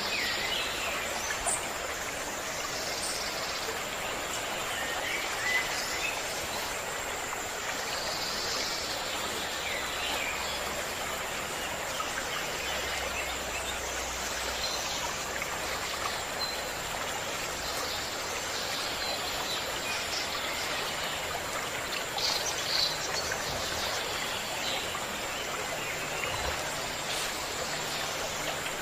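Steady rush of running stream water, with birds chirping and calling now and then over it, and a thin steady high tone throughout.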